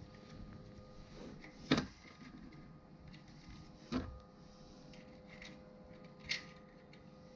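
Small hard plastic parts clicking and knocking against an aluminium mast track as a 3D-printed mast gate piece is fitted by hand: three sharp clicks about two seconds apart, the first the loudest, over a faint steady hum.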